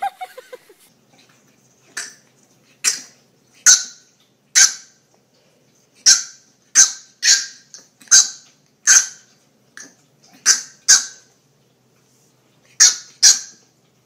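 A small animal giving short, sharp yaps in an irregular series, about fifteen over ten seconds, some in quick pairs.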